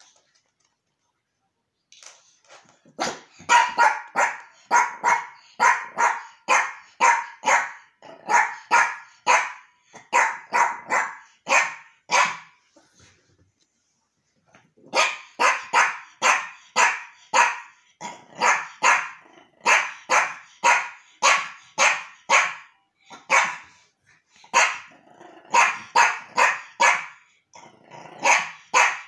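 Yorkshire terrier barking in quick, repeated runs of about two barks a second, with a pause of a couple of seconds in the middle.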